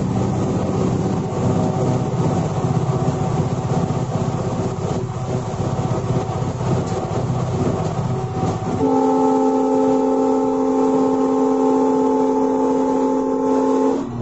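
Running noise inside a moving locomotive's cab, a steady rumble and rattle. About nine seconds in, the locomotive's air horn sounds one long chord of several notes for about five seconds, then cuts off.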